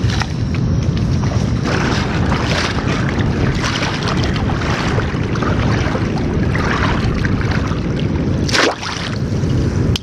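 Wind buffeting the microphone in a steady low rumble, over the sloshing and splashing of legs wading through shallow estuary water, with a sharper splash near the end as a wire crab trap is dropped into the water.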